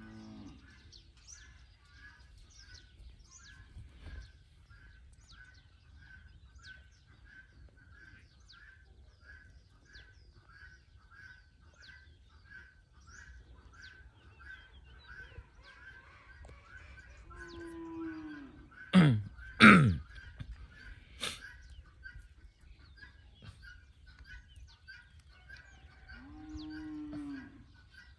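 Cattle mooing twice, each a long arching low call, over a high chirp that repeats about one and a half times a second. Three loud sharp knocks come close together in the middle.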